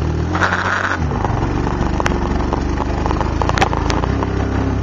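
ATV engine running steadily while riding, with a few sharp knocks and rattles from the machine jolting over rough ground. A brief hiss comes about half a second in.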